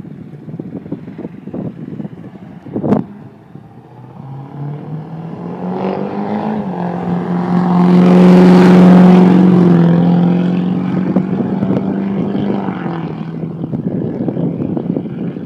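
Straight-piped 2002 Duramax LB7 6.6-litre V8 turbo-diesel in a GMC 2500HD pickup towing a boat, driving past. Its loud exhaust note climbs in pitch as it accelerates toward the microphone, is loudest as it passes about eight seconds in, then drops in pitch and fades away.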